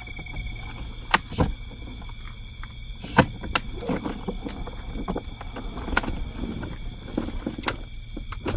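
Sharp metallic clicks and knocks as the aluminium telescoping ladder of an iKamper roof-top tent is pulled out and set in place, about half a dozen at irregular intervals, over a low outdoor rumble.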